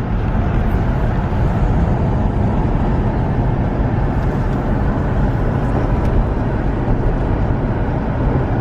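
Car driving: a steady, loud low rumble of road and engine noise.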